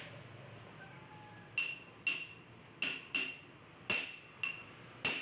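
Hammer blows on the steel backrest frame, about seven ringing metallic strikes irregularly spaced, starting about a second and a half in: the backrest is being knocked into line so its screw holes meet the carrier plate.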